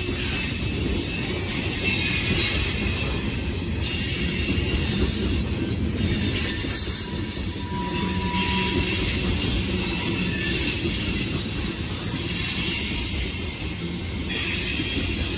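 Loaded coal train's cars rolling past: a steady low rumble of steel wheels on rail, with a faint high wheel squeal coming and going.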